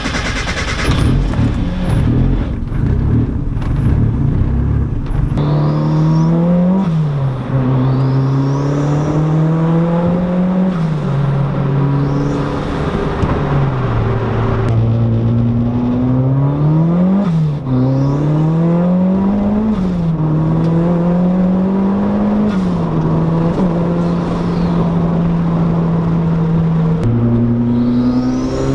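Turbocharged Mazda Miata's four-cylinder engine accelerating through the gears, running cleanly with no misfire on spark plugs regapped to 32 thousandths. After a few seconds of noisy rumble, the engine note climbs, drops at each gear change and climbs again several times, then holds steady near the end.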